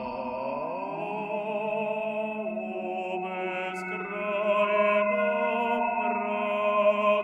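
Contemporary vocal music: several sustained sung tones layered at different pitches, some sliding slowly upward in the first second, then held steady as a dense chord.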